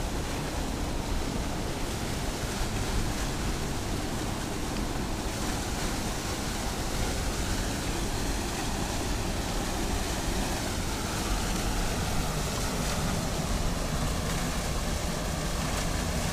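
Steady rush of a small waterfall pouring into a river pool, with the current churning below it.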